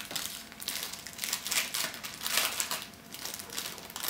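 Clear plastic packaging crinkling in the hands in irregular bursts as a folded paper decoration is handled.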